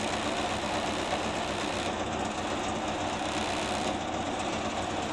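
Ford Escort Mk2 rally car's four-cylinder engine idling steadily, heard from inside the cabin.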